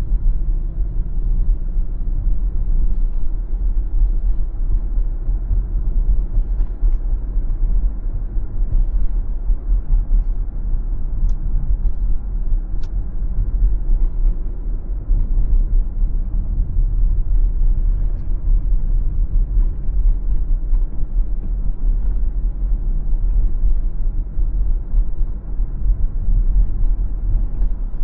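Steady low rumble of a car driving along a city road: tyre and road noise with the engine underneath. Two faint clicks come near the middle.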